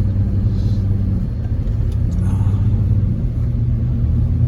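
Chevrolet Tahoe Z71 driving on a snowy road, heard from inside the cabin: a steady low engine drone over tyre and road rumble.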